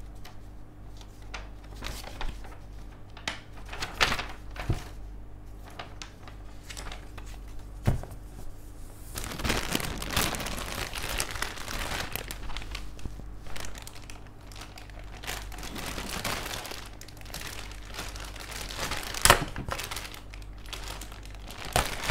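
Clear plastic bags holding plastic model-kit runners being handled and crinkled, with light clicks of the plastic parts. The crinkling is sparse at first, turns dense and continuous from about nine seconds in for several seconds, and a sharp click stands out near the end.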